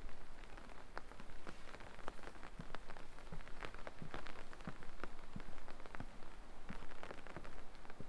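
Light rain: many small drops landing at irregular moments, a dense scatter of ticks over a soft steady hiss.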